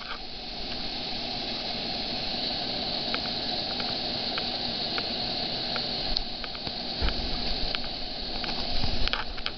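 Air conditioner running: a steady rushing noise with faint, irregular light ticks.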